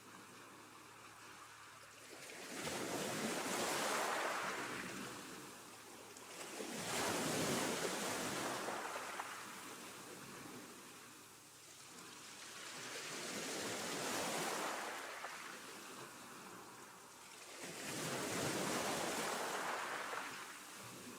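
Choppy sea washing: four swells of rushing water, each building and falling away over about three seconds, a few seconds apart.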